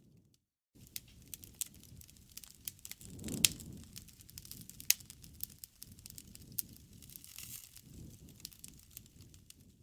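Wood campfire crackling, a stream of sharp pops and snaps over a low rush of flame. The sound cuts out briefly just after the start; the loudest pop comes about three and a half seconds in, with another sharp one a second and a half later.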